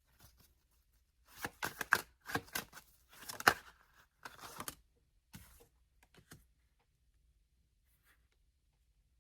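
Tarot cards being shuffled by hand: a run of crisp card rustles and flicks lasting about three and a half seconds, then two short ones.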